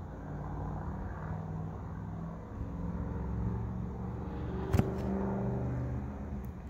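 A motor running with a low, steady rumble and a hum that shifts in pitch, and one sharp click about five seconds in.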